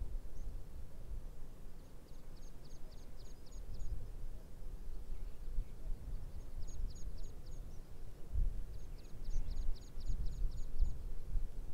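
A small songbird singing three phrases of rapid, high, repeated notes, each phrase lasting one to two seconds. A gusty low rumble of wind on the microphone runs beneath it and grows stronger in the second half.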